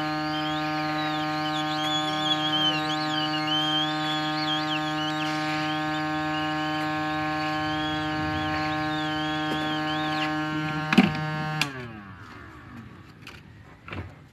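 A small electric motor running with a steady, many-toned hum, then switched off about 11.5 s in, its pitch sliding down as it spins to a stop. A sharp click comes just before it stops.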